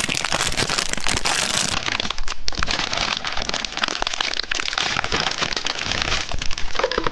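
Plastic wrapper of a Qiaolezi ice cream bar crinkling steadily as it is handled and opened, a dense run of crackles.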